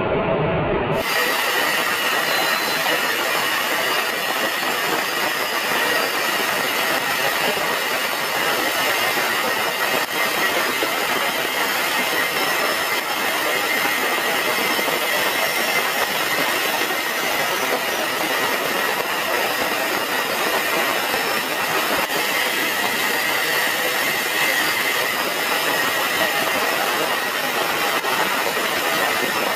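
Steady rushing jet noise of an aircraft in flight: an even, unbroken hiss with a faint steady whine, starting about a second in after a cut from a duller sound.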